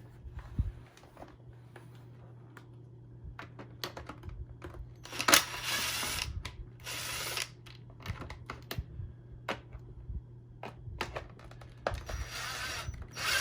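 Clicks and knocks of hands working on a vacuum cleaner's plastic housing, broken by three short runs of a cordless screw gun backing out screws, about five, seven and twelve seconds in. A low steady hum lies under it.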